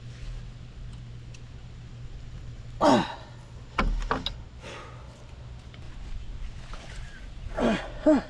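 A man grunting with effort while leaning on a pipe wrench clamped onto a socket to break loose a seized nut, with a few sharp metal clinks about four seconds in. A steady low hum runs underneath.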